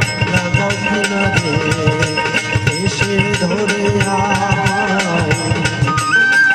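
Instrumental interlude of Bengali Baul folk music: a plucked dotara melody over a steady beat of hand percussion and small hand cymbals. Near the end a bamboo flute comes in with a high held note.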